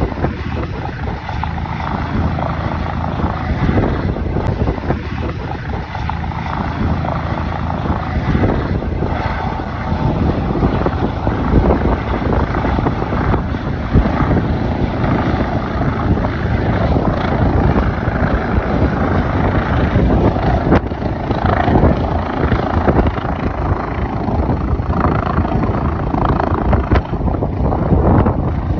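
Air ambulance helicopter running loud as it comes in to land, its rotors and engine a continuous heavy drone, with gusty wind buffeting the microphone.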